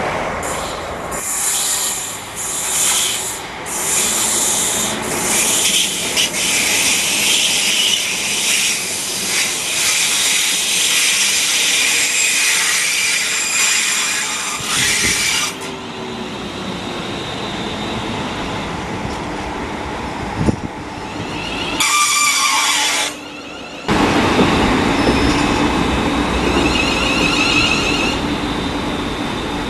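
East Midlands Railway Class 360 Desiro electric multiple units. For about the first fifteen seconds a train runs through at speed with loud wheel and rail noise. After abrupt cuts, a train runs into the platform with a steady whine from its motors.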